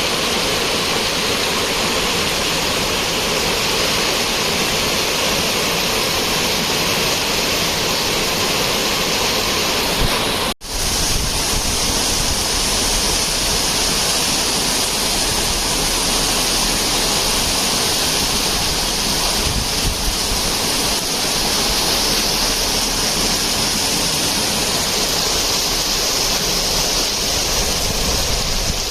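Steady rushing of heavy monsoon rain, cutting out for an instant about ten seconds in.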